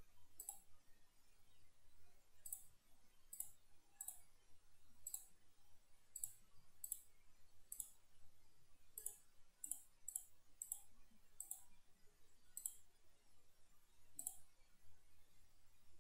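Computer mouse button clicking, faint and irregular: about sixteen single clicks roughly a second apart. Each click sets another corner of a polygon outline being drawn in PCB design software.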